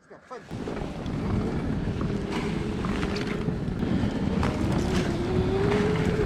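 Electric snow bike with a TrackNGo snow-track kit setting off about half a second in. The track churns through deep snow with wind on the microphone, and the electric motor's whine rises in pitch over the last couple of seconds as it speeds up.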